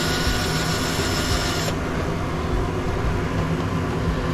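Power drill running as it backs long bolts out of an electric motor's housing. Its higher whine drops away about two seconds in while a lower hum continues. The drill is losing power.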